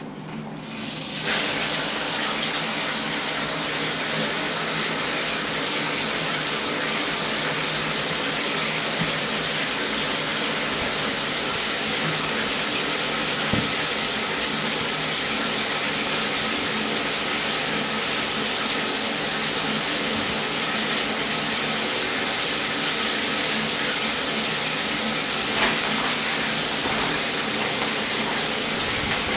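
Bath mixer tap turned on and water spraying from a handheld shower head into the bathtub: a steady hiss that comes up about a second in and holds.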